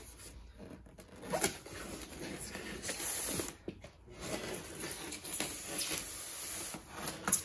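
Plastic wrapping rustling and crinkling against a polystyrene packing case as statue parts are handled and unwrapped, loudest about three seconds in.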